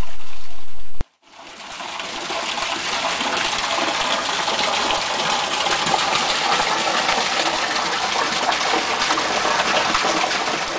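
Steady rush of water from a small pulser pump's supply flow, about 30 litres a minute pouring into a stone pit, fading in after a loud sound cuts off sharply about a second in.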